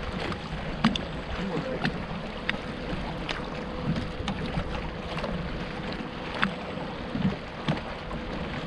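Water lapping and splashing against a small boat's hull, with scattered light taps, a faint steady hum and wind on the microphone.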